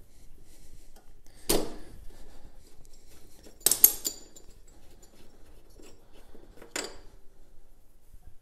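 Locking pliers clinking against the spark plug of a Tecumseh mower engine as the plug is worked loose and taken out. There is a sharp clack about a second and a half in, a quick cluster of clinks near four seconds and another clack near seven seconds.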